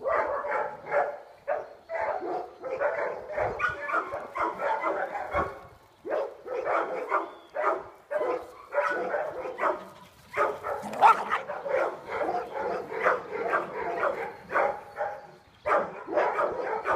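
Dog barking rapidly and repeatedly, three or four barks a second, in long runs broken by short pauses, with one louder, higher yelp about two-thirds of the way through.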